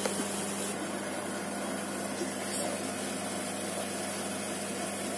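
A steady mechanical hum with a constant low tone, broken only by a few faint light clicks.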